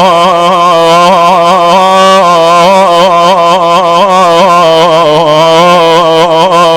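A man chanting an Arabic Husayni lament, holding one long, wavering, ornamented sung note without clear words.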